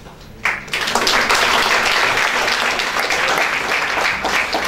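Audience and panel applauding, starting suddenly about half a second in after a speaker finishes her talk.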